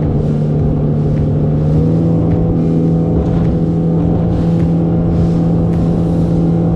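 Boat engine running under way at cruising speed, a steady drone that steps up slightly about two seconds in, with water rushing and splashing along the hull.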